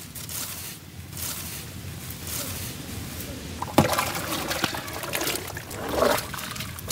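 Hands rustling through dry long-grain rice in a steel pot, then about four seconds in water is poured onto it and the rice is swished and rubbed by hand to wash it.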